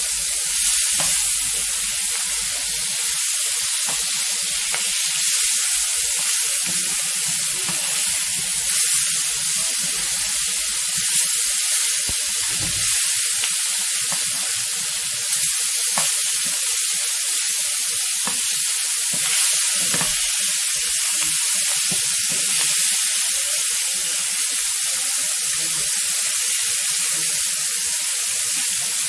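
Fish pieces sizzling as they shallow-fry in hot oil in a non-stick frying pan: a steady hiss. Now and then there are short clicks and scrapes of a metal spatula and fork turning the pieces.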